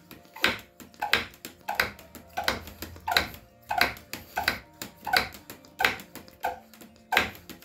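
Fuel-bottle hand pump of a Soto Stormbreaker multifuel stove being pumped to pressurise the bottle before lighting. About a dozen even strokes, one every two-thirds of a second, each a short hissing whoosh that falls in pitch.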